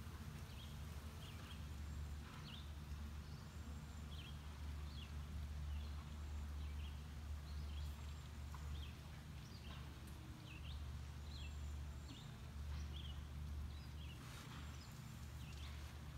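Outdoor garden ambience: a steady low wind rumble on the microphone, with short bird chirps scattered throughout.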